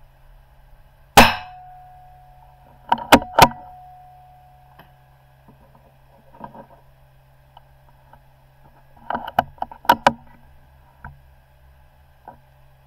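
A .22 rimfire benchrest rifle fires one shot about a second in, a single sharp crack with a short decaying tail. Sharp metallic clicks of the bolt being worked follow around three seconds in, with another cluster of clicks around nine to ten seconds and a couple of lighter clicks near the end.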